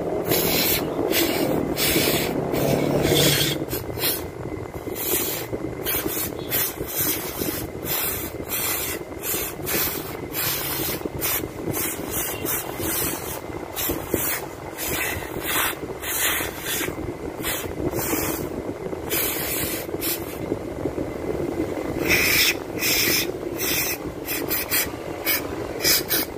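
Aerosol spray cleaner fired through a red extension straw into the ports of an idle air control valve, in many short hissing bursts one after another, some held a little longer, over a steady low background hum.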